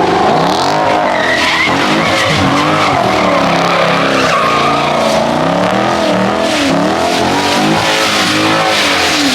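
Car engine revving up and falling back again and again while the car slides and spins its tyres on wet pavement.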